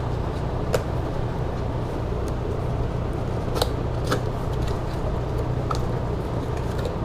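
A phone-holder box and its packaging being opened by hand: a few light clicks and handling noises over a steady background hum.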